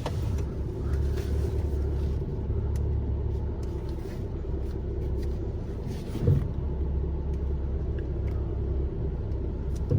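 Tow vehicle's engine running low and steady while reversing slowly up to a trailer hitch, with a single thump about six seconds in.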